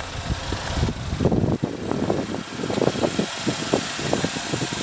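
2014 Chevy Equinox four-cylinder engine idling steadily, with irregular rustling and knocks close to the microphone over it.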